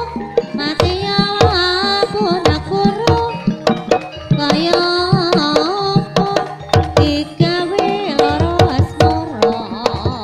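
Javanese gamelan music accompanying a Banyumasan ebeg dance: quick kendang drum strokes under a wavering, sliding melody line that sounds like a sung voice.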